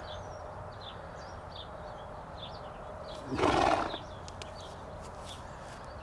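A draft horse snorts once, a short noisy blow through the nostrils lasting about half a second, roughly midway through. Birds chirp faintly in the background.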